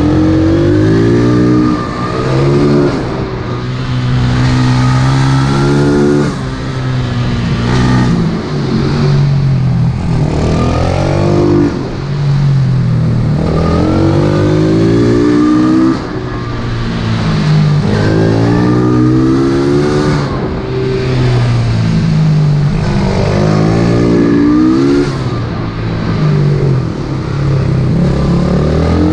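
Pitbike's single-cylinder engine being ridden hard, revving up repeatedly with its pitch climbing, then dropping sharply each time the throttle is shut for a corner.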